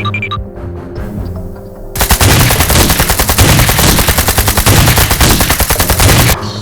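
Rapid automatic gunfire, a long continuous burst of many shots a second starting about two seconds in and cutting off near the end, over background music.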